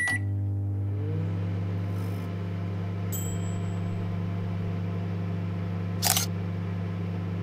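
A sustained low synthesizer drone held steady under the closing logo cards, opening with a click. A faint high glint comes about three seconds in and a short swish about six seconds in.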